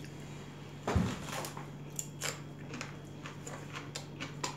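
Small clinks and taps of spoons and dishes at a meal table, with one louder dull thump about a second in, over a steady low hum.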